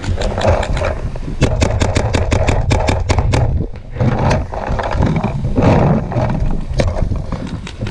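Paintball markers firing, with a fast string of shots at about seven or eight a second in the middle and single shots after it, over a steady low rumble.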